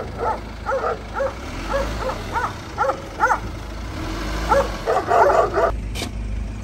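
A dog barking over and over in short, quick barks, about two or three a second, stopping shortly before the end.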